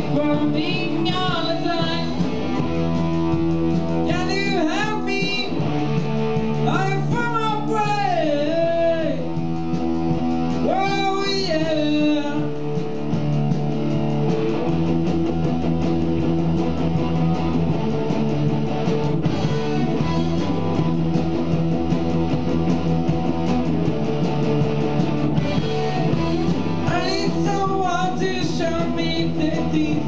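Live rock band playing: electric guitar, bass guitar and drum kit, with a singer on a microphone. The vocal comes in phrases in roughly the first dozen seconds and again near the end, with an instrumental stretch between.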